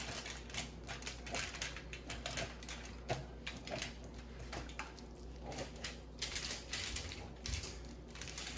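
Gloved hands rubbing yellow mustard into raw baby back ribs on a sheet of aluminium foil: quiet, irregular crinkles of the foil and soft wet rubbing.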